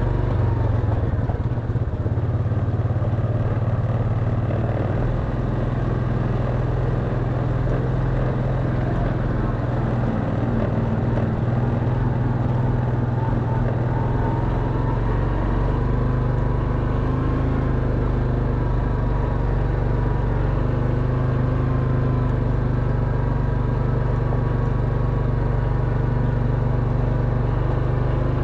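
Quad bike engine running steadily under load while climbing a rough, rocky gravel track, with a constant low drone.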